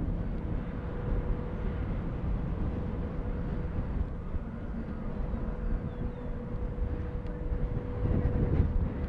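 Steady rumble of jet aircraft engines running at a distance, with a constant whine over it.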